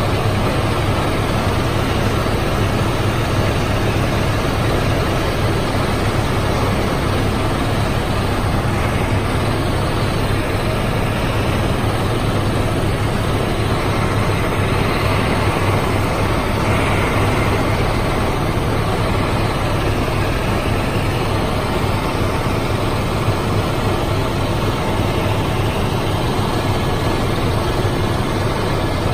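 A helicopter in flight, heard from inside the cabin: steady, loud engine and rotor noise with a strong low hum underneath.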